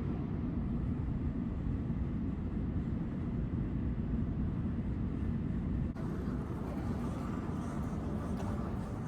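Kohler Kingston toilet flushing: a loud, steady rush of water, heaviest in the low end. About six seconds in, a faint whistling tone and small clicks join the rush as it eases off.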